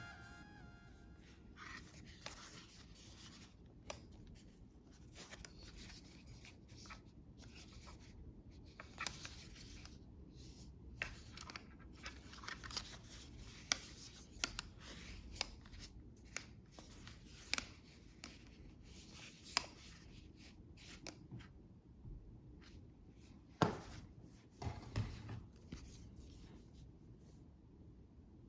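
Faint, scattered clicks, taps and rustles of headphone packaging being handled and opened, with a louder knock about three-quarters of the way through followed by a short rustle.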